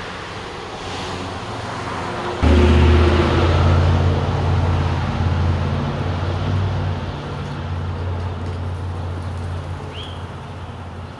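A passing road vehicle's engine: a low, steady hum that comes in suddenly and loud about two seconds in, then slowly fades away. A single short bird chirp sounds near the end.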